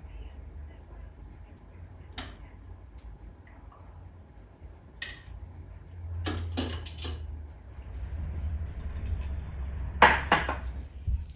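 Dishes and utensils clinking and clattering on a kitchen counter: a few separate clinks, a quick cluster about six to seven seconds in and the loudest about ten seconds in, over a low steady hum.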